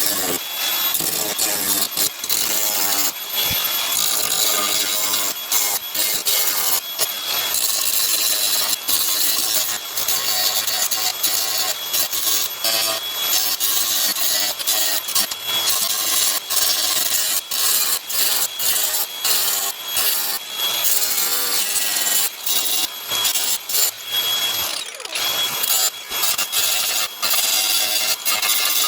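Power tool working on car body sheet metal, running in short passes with frequent brief breaks.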